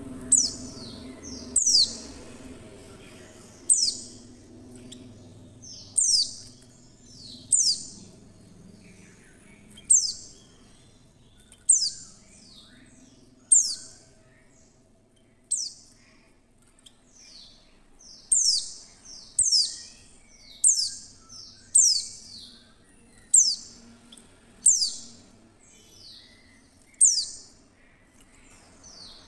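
Female white-eye giving short, high chirps that slide down in pitch, one every one to two seconds and coming quicker in the second half. It is the call bird-keepers use to draw male white-eyes into singing.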